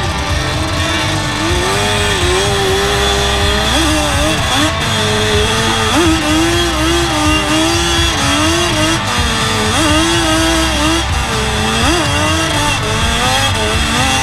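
Sport quad (ATV) engine revving hard under throttle, its pitch jumping up sharply several times, about every two seconds, and wavering between. This is a rider working the throttle and gears while climbing sand hills.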